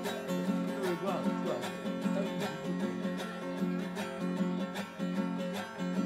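Acoustic guitar strummed in a steady, even rhythm, the same chords repeating about twice a second.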